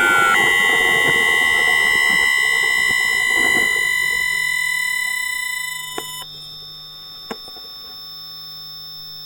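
Bombardier IGBT traction inverter of a London Underground 2009 Tube Stock, picked up electromagnetically by a telephone pickup coil as the train slows to a stop. Falling inverter tones switch to steady high whines at fixed pitches, which cut off suddenly about six seconds in, leaving a faint hum and a few sharp clicks.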